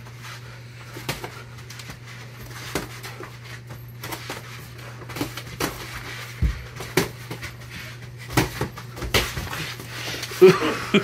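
Boxing gloves landing on bodies and headgear and feet moving on foam floor mats during sparring: irregular sharp knocks, the heaviest about six and a half seconds in and a loud cluster near the end, over a steady low hum.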